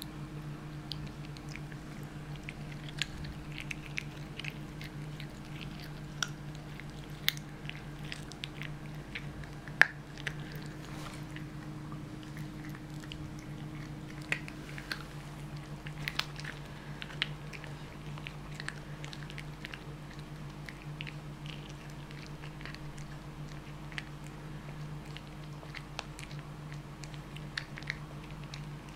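Kitten gnawing and chewing on a meat bone: irregular crunches and sharp clicks, over a steady low hum.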